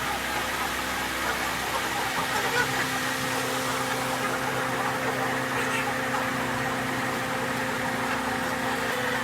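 A motor running with a steady, even hum.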